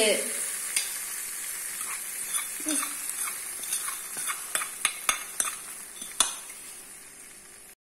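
Hot ghee with fried cashews and raisins sizzling on top of payasam in a steel bowl: a fading hiss with scattered sharp pops and crackles.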